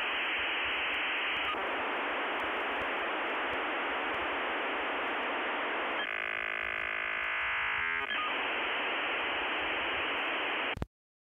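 Steady static hiss with a narrow, telephone-line-like range, with a cluster of steady tones sounding over it for about two seconds midway; it cuts off abruptly just before the end.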